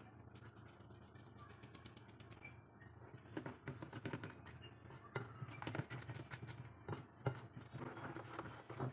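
Wire whisk stirring flour into egg-yolk cake batter in a bowl: soft, irregular tapping and scraping strokes against the bowl, starting about three seconds in.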